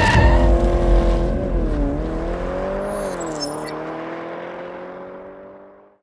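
A car engine revving, its note dipping and rising a couple of times, then fading away to silence near the end.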